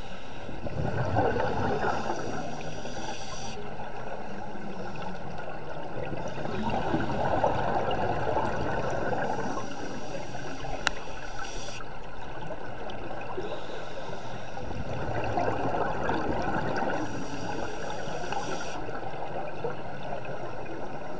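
Underwater scuba breathing through a regulator: three bubbling rushes of exhaled air several seconds apart over a steady watery hiss, with one sharp click near the middle.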